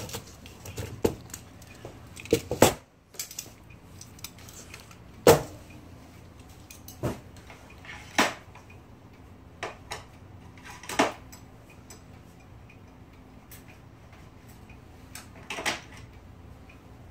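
Small metal typewriter parts and tools clicking, clinking and knocking at irregular intervals as an Olivetti Lettera 32 typewriter is taken apart, about ten sharp taps with the loudest about five seconds in.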